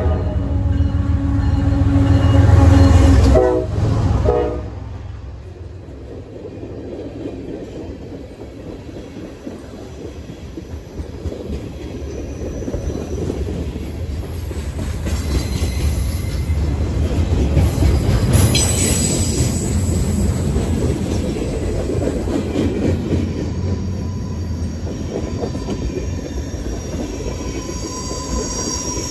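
CSX diesel freight locomotive passing close by, its engine loud and its multi-note horn blowing as it comes in, breaking off about half a second in and sounding again briefly around three to four seconds in. Then the manifest train's boxcars, hoppers and tank cars roll past with a steady rumble and clatter of wheels on rail, and high wheel squeal about halfway through and again near the end.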